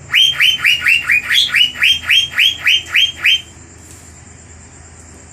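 Asian fairy-bluebird (cucak biru) singing a fast, loud run of about thirteen arched whistled notes, roughly four a second, which stops about three and a half seconds in.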